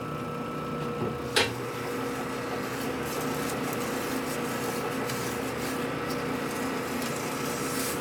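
Metal lathe running steadily with a constant motor and gear whine, while a hand file scrapes against the spinning steel workpiece. One sharp click about a second and a half in.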